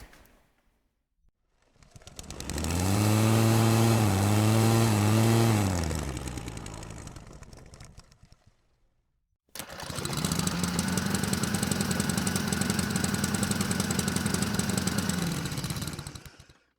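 Two separate lawn mower engine recordings. The first rises in pitch, runs with a wavering pitch for a few seconds, then slows and dies away. After a short gap the second cuts in abruptly and runs steadily with a fast, even pulse before fading out near the end.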